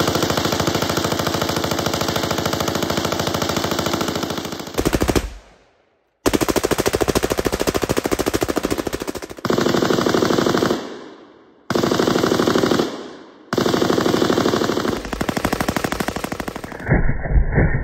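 M249 SAW, a belt-fed 5.56 mm light machine gun, firing long fully automatic bursts of rapid, evenly spaced shots. Short breaks between bursts come about five, eleven and thirteen seconds in. Near the end the fire sounds duller and boomier.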